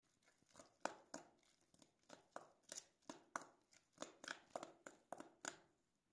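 Metal spoon stirring wet grated onion in a stainless steel bowl, a run of quick, irregular clicks and short scrapes as it knocks and drags against the bowl.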